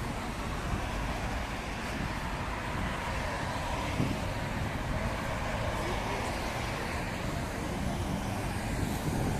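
Steady low rumble of a moving city bus heard from inside: engine and road noise.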